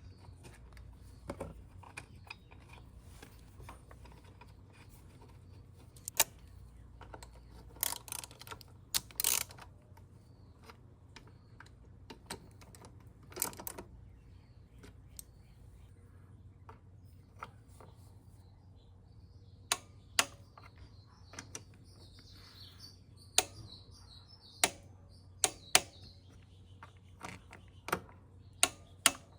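Hand tools and metal scooter brake parts clicking and tapping at irregular intervals, with a few longer scrapes about eight, nine and thirteen seconds in, over a low steady hum. Birds chirp faintly in the background around the twenty-second mark.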